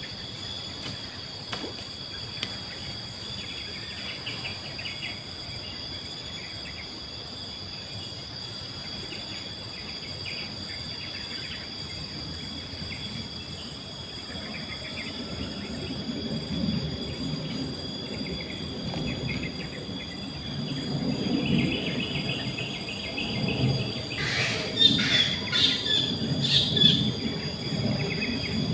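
Outdoor riverside ambience: insects shrill steadily on two high tones while birds chirp, with a quick run of bird calls about 25 seconds in. A low rumbling noise builds through the second half.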